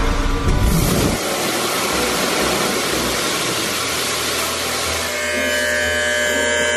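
Car engine and road rumble, then about a second in a steady, even rushing hiss of automatic car wash equipment starts up, heard from inside the car with its sunroof open. A few steady tones join near the end.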